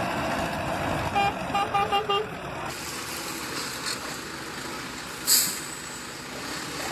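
A vehicle horn tooted in about five quick short beeps over steady vehicle noise. About five seconds in there is a single sudden short burst of noise.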